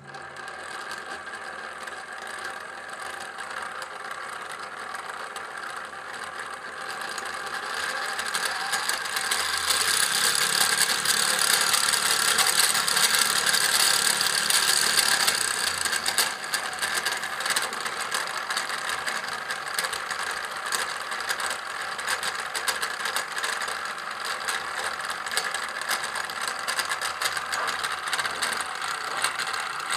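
Small DC electric motor driving a metal construction-kit gearbox with a red plastic gear wheel: a steady whirring with a fast gear-tooth chatter, starting with a click as the power is switched on. It gets louder and faster as the supply voltage is turned up, loudest from about 8 to 16 seconds in, then settles a little quieter.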